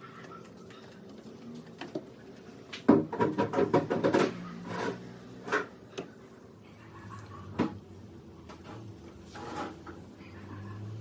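Clicks and knocks of objects being handled, densest about three to five seconds in, with a few single knocks spaced out after.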